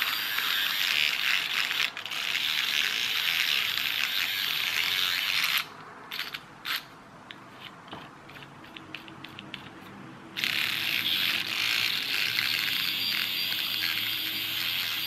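Small battery-powered electric motor of a Kenner Carzillas toy car whirring through its worm-gear drive. It cuts out about five and a half seconds in, leaving a few faint clicks, and starts again about ten seconds in. The motor runs but has trouble turning the wheels, which the owner puts down to something gumming up the axles.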